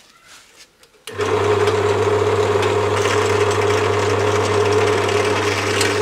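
Bench drill press starting suddenly about a second in and running steadily with a strong low hum, an 8 mm bit drilling through the steel core of a microwave oven transformer.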